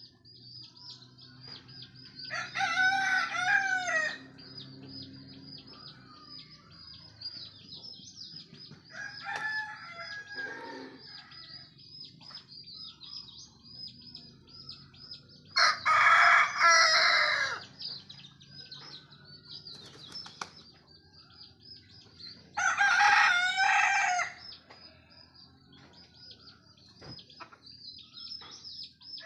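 Rooster crowing four times at dawn, each crow about two seconds long. The second crow is fainter and the third is the loudest. A steady, high-pitched pulsing chirp continues underneath.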